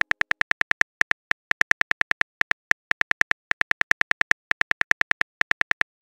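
Phone keyboard typing sound effect: a quick run of sharp, identical key-tap clicks, about five a second, with short uneven pauses as a message is typed out.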